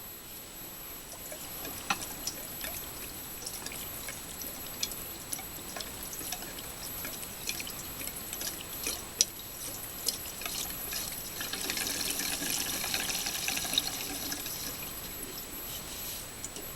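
Gasoline being poured into a snowblower's fuel tank: a steady trickle of liquid with a few sharp clicks, louder for a few seconds near the end.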